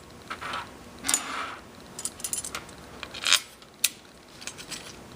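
Scattered light metallic clicks and clinks with a few short scrapes, from small steel and aluminium hardware and hand tools being handled on a workbench; one sharper click comes near the four-second mark.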